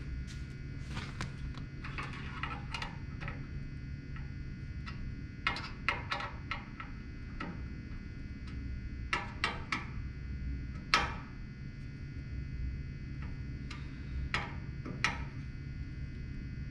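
Scattered metallic clicks and light knocks from a T-handle hex wrench working the bolts of a disc sander's tool rest as they are tightened, coming in small clusters, with one sharper knock about two-thirds of the way through. A steady low hum sits underneath.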